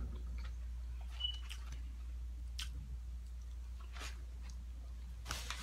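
Close-miked chewing of fried chicken sandwich and fries, with scattered soft crunches and mouth clicks, over a steady low hum.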